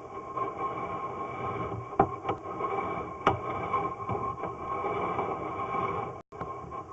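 Steady hiss and hum from a sewer inspection camera's audio feed as it runs in the line, with two sharp clicks about two and three seconds in and a brief cut-out of the sound near the end.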